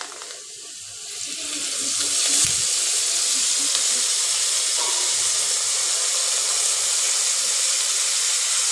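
Steady sizzling of food frying in hot oil in a pan. It grows louder over the first couple of seconds, then holds steady.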